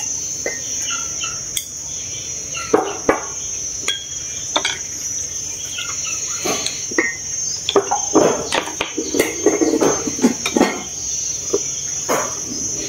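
A steady, high-pitched drone of insects runs throughout. Over it come repeated clinks and knocks of a ladle and porcelain bowls as rice is scooped and served, growing busier about halfway through.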